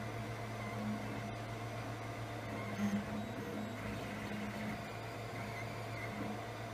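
Monoprice Maker 3D printer running a print: a steady fan hum with short stepper-motor whirs that come and go as the print head and bed move.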